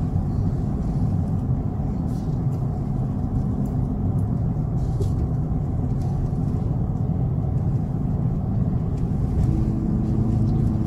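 Steady road and engine noise of a vehicle cruising on the highway, heard from inside the cabin: an even low rumble with no distinct events.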